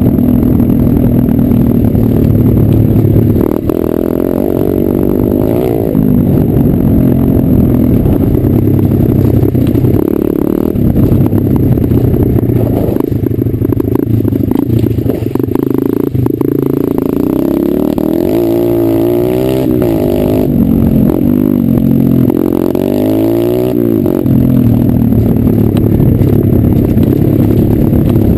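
125 cc dirt bike engine running as it is ridden over a rough, stony trail, heard from a helmet-mounted camera. The revs rise and fall repeatedly as the throttle is worked, most often in the second half.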